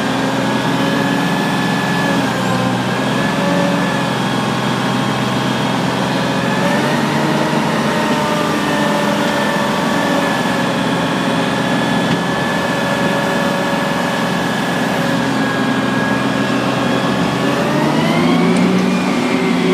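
Mobile crane's diesel engine running steadily while it works the hoist. It speeds up, rising in pitch, near the end.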